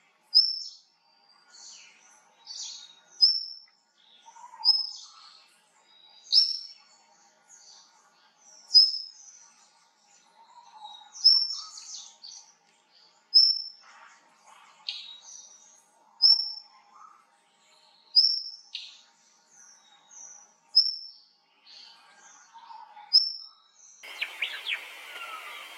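Indian blue robin singing: a short, high whistled phrase repeated every second or two, with fainter lower notes between. Near the end the song stops and a rushing stream takes over.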